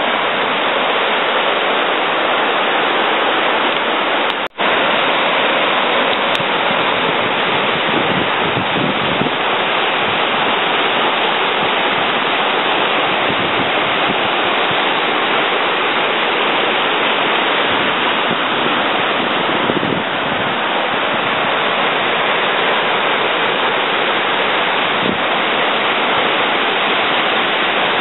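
Spring water that has resurfaced from underground, rushing over rocks in a fast stream: a steady rush of water. The sound cuts out for an instant about four and a half seconds in.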